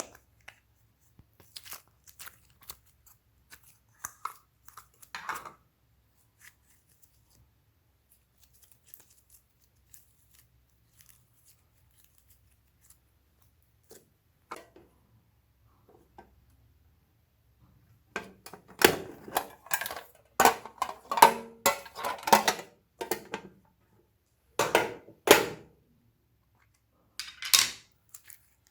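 Slime being worked by hand, with sticky clicks and pops. It stays sparse and faint for a long stretch, then turns into a loud, dense run of crackling squelches past the middle, with a couple of further bursts near the end.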